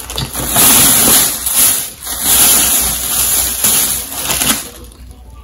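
Loud rustling and crinkling of packaging as clothing items are dug out of a bag, in two long swells.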